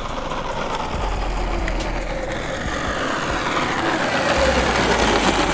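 Redcat Earthquake 8e RC car with a 1350kv brushless motor geared on a 30-tooth pinion, its motor whine and tyre hiss growing louder as it drives toward the camera. The whine falls in pitch over the middle seconds.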